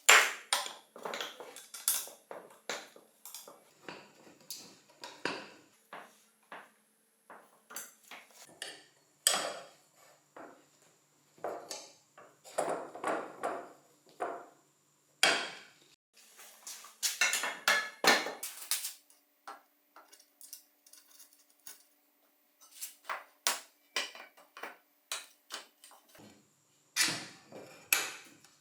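Metal bike parts and tools clinking, knocking and clattering in irregular taps and short clusters, as parts are handled and worked on.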